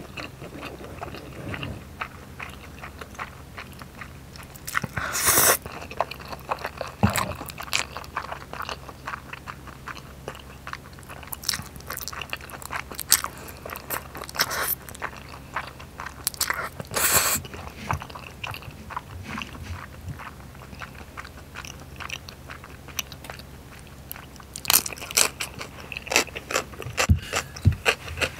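Close-miked eating sounds: chewy noodles and rice cakes in a sticky sauce being slurped in several short loud bursts, with wet chewing and mouth clicks in between.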